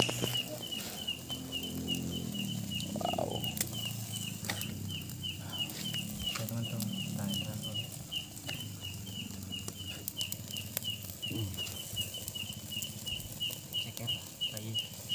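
Steady, evenly repeated high chirping, a little under three chirps a second without a break, typical of a chirping insect at night, over faint low background voices and scattered small clicks.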